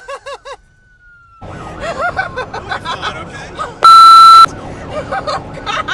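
Police car siren sounding: a fast warbling yelp and a slow rising-and-falling wail. After a brief lull it comes back about a second and a half in, over road and engine noise. Near four seconds a very loud steady electronic tone blasts for about half a second.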